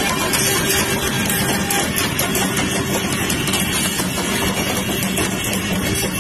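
Indian Railways WAG-12 twin-section electric locomotive rolling past slowly, a steady mechanical hum and whir from the machinery with rail noise from the wheels.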